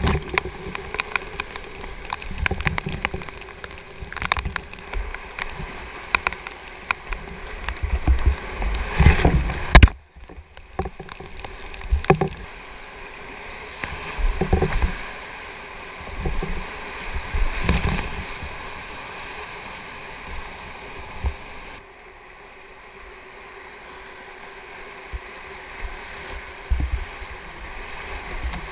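Whitewater rapids rushing around a kayak, with loud splashes as waves break over the boat and the close-up camera, and paddle strokes among them. It drops out briefly about ten seconds in and runs calmer after about twenty-two seconds.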